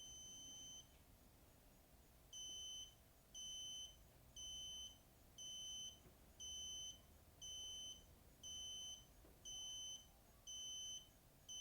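Magic Closer automatic garage door closer beeping its warning: short, high beeps at about one a second after a brief pause near the start. This faster beeping marks the last 30 seconds before it closes the garage door.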